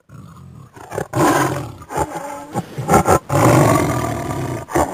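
Tiger roaring, a sound-effect clip: a low growl, then a run of loud, rough roars, the longest about a second and a half.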